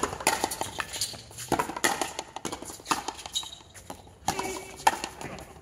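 Frontenis rally: the ball cracking off strung rackets, the fronton wall and the concrete floor in quick, irregular succession.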